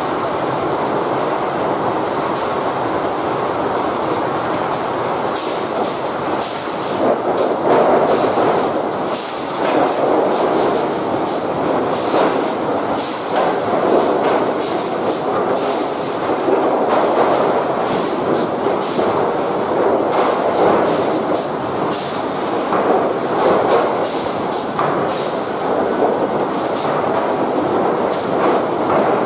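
Automated lumber stacking machinery running: a steady mechanical rumble of conveyors and drives. From about five seconds in, a rapid irregular clatter of sharp knocks, wood boards and steel parts striking as layers of lumber are moved and stacked.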